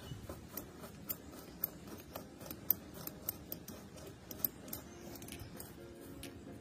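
Irregular sharp metallic clicks and ticks from a hand tool turning the screws that fasten a chainsaw's finned aluminium cylinder to the crankcase, the tool reaching down through the cooling fins.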